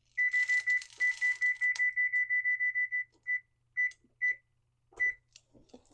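Digital timer being set: a fast run of short, high key beeps for about three seconds as a button is held or tapped repeatedly, then four single beeps from separate presses.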